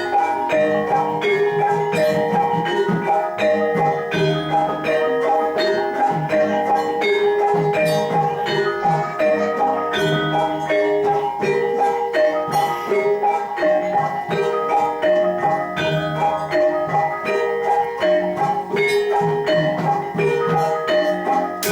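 Javanese gamelan playing jathilan accompaniment: bronze metallophones struck in a brisk, unbroken run of ringing notes.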